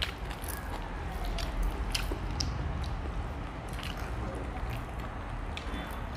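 Close-up eating sounds: bites and chewing of fried fish and rice eaten by hand, heard as scattered short, sharp clicks and wet smacks.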